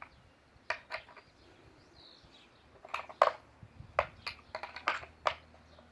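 Sharp metallic clicks and knocks of a wrench working the bar nuts on a STIHL chainsaw, loosening them. They come scattered and irregular, loudest about three seconds in.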